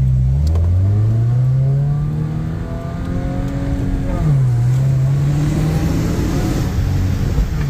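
A 2015 Subaru WRX's turbocharged flat-four accelerating hard, heard from inside the cabin. The engine note climbs, falls at a gear change about four seconds in, then climbs again to another shift near the end.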